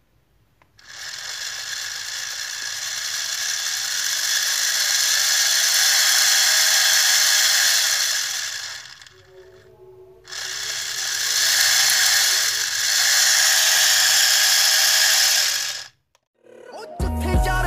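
Small DC motor driving the plastic gear train of a model tractor, whirring with a steady gear whine as the wheels spin. It runs for about eight seconds, stops briefly, then runs again for about five seconds and cuts off. Music starts near the end.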